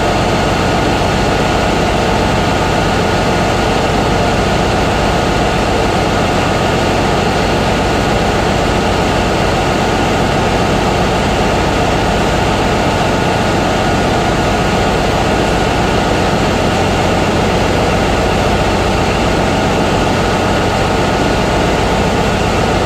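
Steady, loud drone of running engine-room machinery, unchanging throughout, with a few fixed high tones over a dense low hum.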